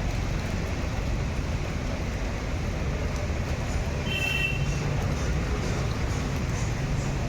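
Tata Nexon four-cylinder diesel engine idling with a steady low rumble, likely running rough on cylinder 3: its injector reads open circuit, which the mechanic takes for a probable misfire from rat-chewed wiring. A brief high squeak comes about four seconds in.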